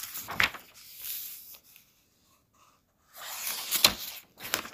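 Clothing rustling and footsteps of a person moving up to a whiteboard, with two sharp taps in the last second.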